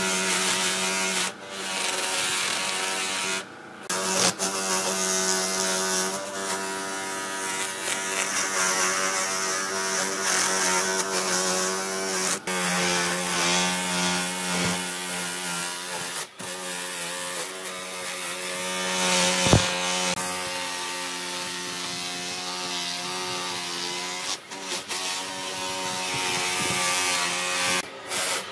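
Electric angle grinder with a sanding disc running against old timber railway sleeper wood: a steady motor whine with the rasp of the disc on the wood. It drops out and comes back abruptly several times.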